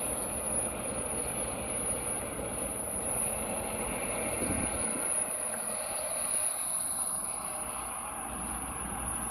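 Steady airport apron machinery noise: a continuous drone with a thin, high steady whine over it. The low rumble thins out about five seconds in.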